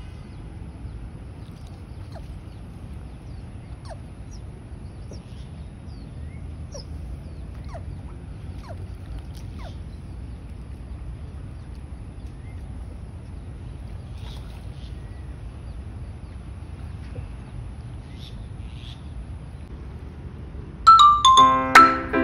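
Wind rumbling on the microphone, with faint short falling chirps now and then. About twenty-one seconds in, loud marimba-like music begins.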